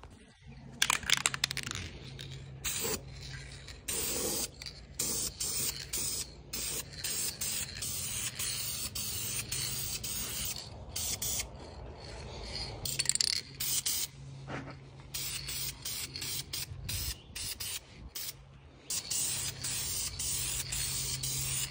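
Aerosol spray-paint can hissing in repeated bursts, some about a second long and some several seconds, with short pauses between as the paint is laid on.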